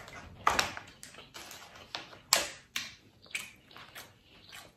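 Wet, sticky eating sounds of a mouthful of lobster tail meat in spicy Cajun sauce being chewed, along with sauced fingers handling the lobster tails. They come as short, irregular clicks and smacks, the loudest about half a second and two and a half seconds in.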